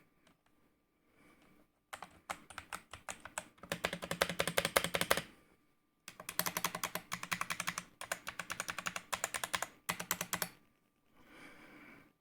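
Typing on a computer keyboard: two runs of rapid keystrokes, each a few seconds long, with a short pause between them.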